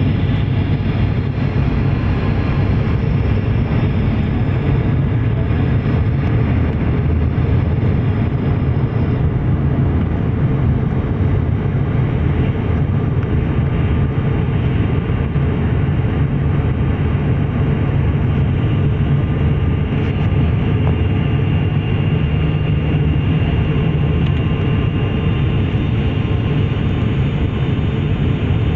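Cabin noise of a turboprop airliner in flight: its engines and propellers running steadily, a loud constant low hum heard inside the cabin.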